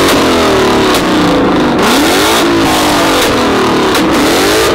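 A car engine revved hard over and over, its pitch climbing and dropping roughly once a second, with a few sharp exhaust cracks between revs.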